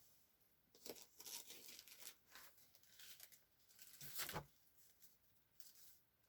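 Faint, irregular rustling of paper being handled, with the loudest rustle and a soft thump about four seconds in.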